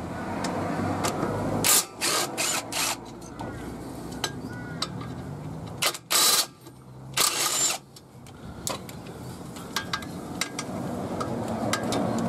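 Hand tools at work on a car's front suspension: scattered metallic clicks and a few short rasping bursts, two of them about six and seven seconds in.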